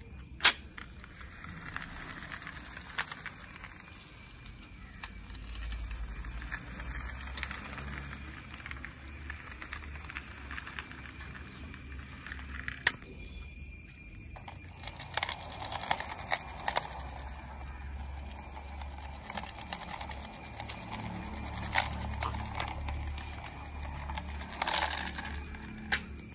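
Plastic toy vehicles pushed by hand along a concrete model road: a rough rolling scrape broken by several sharp plastic clicks and knocks, the loudest about half a second in. A steady high-pitched whine runs underneath.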